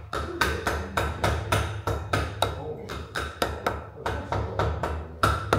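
Hammer striking metal repeatedly, about four blows a second, each with a short metallic ring, as the brake disc is tapped onto the rear hub.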